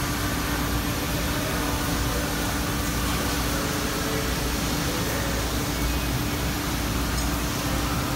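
Steady mechanical hum of a factory floor, like ventilation or running machinery, with a constant drone that stays even throughout.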